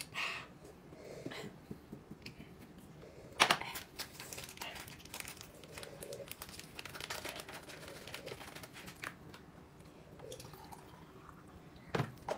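Crinkling and rustling of something being handled, a busy run of small crackles, with one sharp knock about three and a half seconds in.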